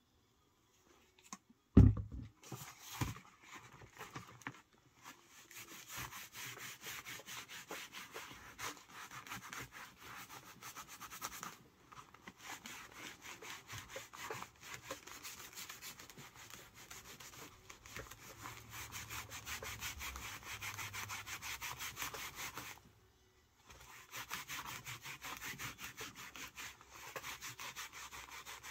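Sheep's-wool pad scrubbing antique leather dye into the flesh side of a leather holster piece, in quick, continuous rubbing strokes with a short break near the end. One sharp knock about two seconds in.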